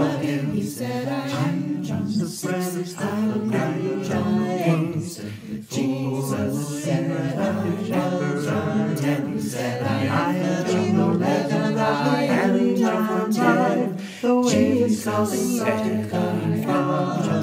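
A small mixed a cappella group singing a hymn in three parts at once, each part with its own words over the others. There are short breaks between phrases about six and fourteen seconds in.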